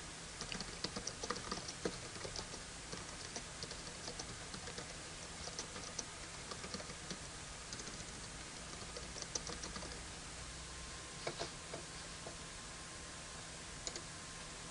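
Computer keyboard being typed on, a faint, irregular run of key clicks as a sentence is entered, with a few slightly louder clicks near the end.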